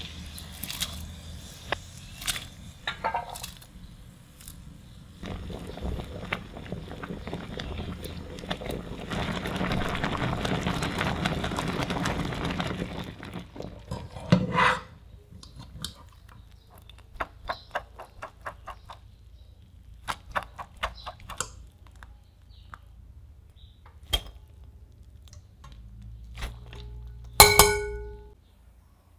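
Kitchen handling sounds as diced potato is moved into a glass bowl: scattered taps and clicks, a steady rushing noise for several seconds in the middle, and a run of quick ticks. Near the end the glass bowl gives a loud ringing clink.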